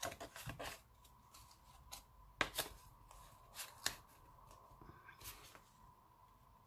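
Hands handling cardstock: a white cardstock disc pressed into a black cardstock band, making faint paper rustling with a few light taps and clicks, two close pairs of them in the middle.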